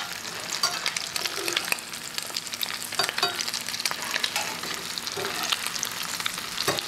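Crab cakes sizzling and crackling in olive oil and butter in a nonstick frying pan. A metal slotted spatula clicks against the pan a few times as the cakes are turned.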